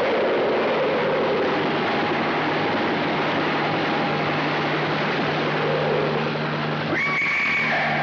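Film sound effects of a giant monster attack: a loud, dense drone of a helicopter's engine and rotors with a steady low hum, a wavering creature cry near the start, and a sudden shrill tone about seven seconds in.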